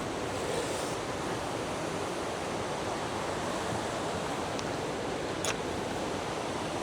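Steady rush of a fast-flowing river running over cascades, with a brief click about five and a half seconds in.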